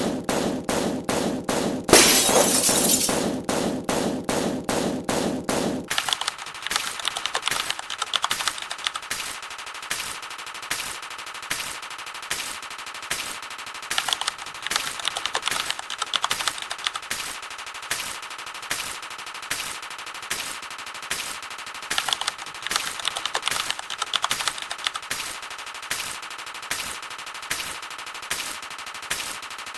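A rapid string of short sound-effect clips played back to back. There is a loud breaking-glass crash about two seconds in. After about six seconds it changes to a thinner, faster, even run of sharp clicks over a steady tone, like rapid gunfire.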